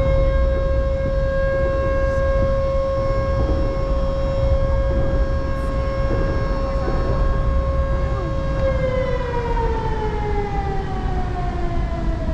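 A siren-like whine holds one steady pitch for about nine seconds, then winds down, sliding slowly lower in pitch, over a constant low rumble.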